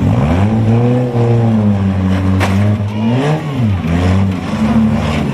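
Compact demolition-derby car engines revving. The revs climb at the start, hold steady, then drop and climb again about three seconds in.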